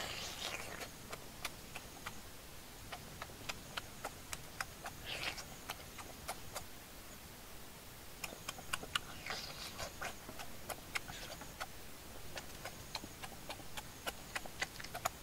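A person chewing and sucking on cooked octopus close to the microphone: a run of small, irregular wet mouth clicks, with a few short hissing slurps.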